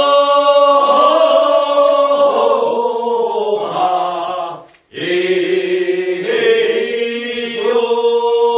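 A group of voices singing the refrain of a Korean rice-paddy weeding work song (first weeding) together, answering the lead singer's verse. They sing two long, drawn-out phrases with a short break for breath a little under five seconds in.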